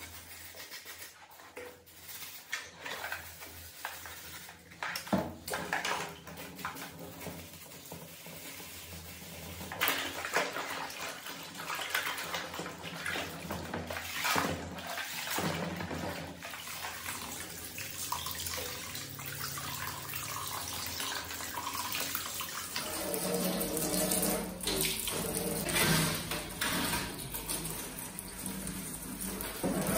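A computer power supply unit being scrubbed and swished in a basin of soapy water: splashing, dripping and knocks of the metal casing. About two-thirds of the way in it gives way to a steady rush of a water jet spraying over a desktop PC case.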